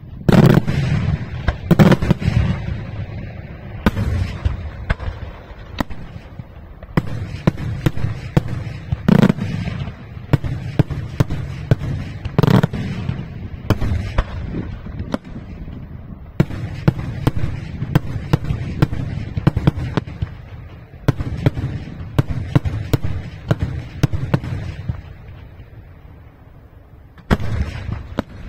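Daylight fireworks display: aerial shells bursting overhead in rapid, overlapping volleys of sharp bangs, with heavier single reports every few seconds. The barrage thins to a lull near the end before another volley starts.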